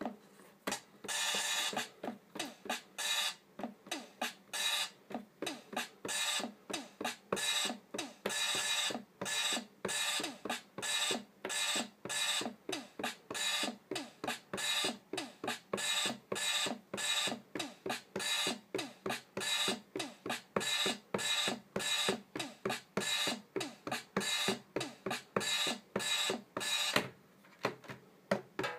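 Drum sounds triggered by finger taps on an Akai MPD16 pad controller, in a steady run of about four hits a second. The run starts about a second in and stops about a second before the end.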